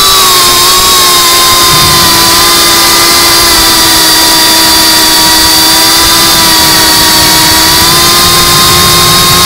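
GEPRC CineLog 35 cinewhoop drone's brushless motors and ducted propellers giving a steady whine of several close tones over a rushing hiss, the pitch holding nearly level in cruise flight.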